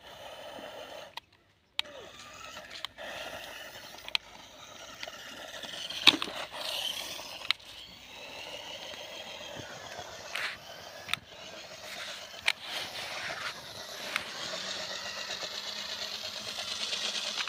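Toy RC rock crawler's small electric drive motors whining, rising and falling in pitch, as its tyres scrape and spin in loose dirt, with scattered sharp clicks.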